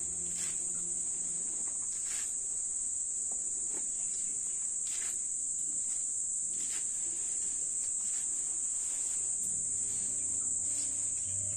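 A steady, high-pitched insect chorus trilling without a break, with a few faint clicks over it.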